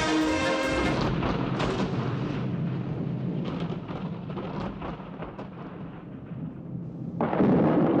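Orchestral music breaks off at the start and gives way to rolling thunder that slowly fades. About seven seconds in, a sudden loud new peal of thunder breaks in.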